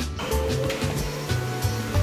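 Background music with a bass line and a regular beat.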